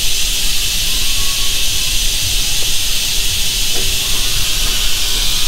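Steady, loud hiss of a vacuum bleeder running on the clutch hydraulics, with a low rumble underneath, during the hydraulic-system bleed of an R-tronic gearbox.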